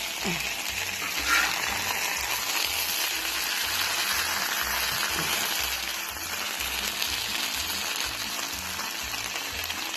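Bacon and breakfast fixings sizzling steadily on a plow-disc cooker (discada) over a low flame.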